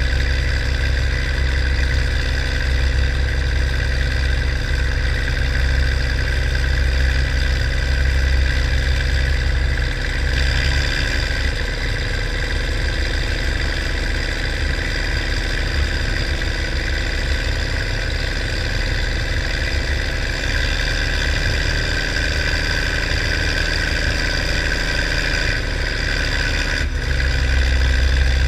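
Minneapolis-Moline GVI tractor's six-cylinder engine running steadily under load as it pulls down the track. Its deep low note thins and it gets slightly quieter about ten seconds in, then comes back near the end.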